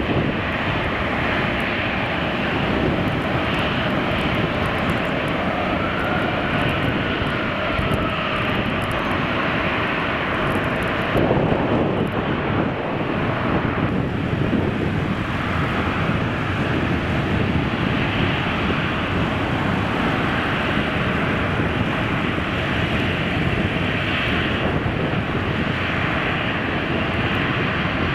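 Jet airliner engines running on the ground: a steady, loud rush of engine noise with a faint turbine whine that rises and falls about a quarter of the way in.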